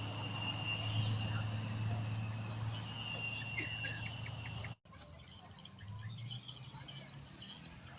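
Outdoor ambience of steady high insect calls and a few short bird-like chirps over a low steady hum. It drops out abruptly a little past halfway and resumes quieter.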